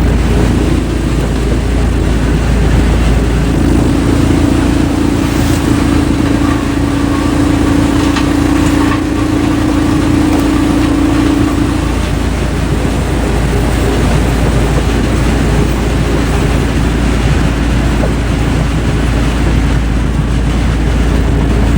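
Heavy wood-processing machinery running: a loud, steady engine drone with rumbling grinding noise and a steady hum that strengthens for several seconds a few seconds in.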